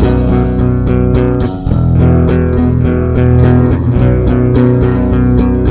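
Instrumental music with guitar and bass guitar, no vocals.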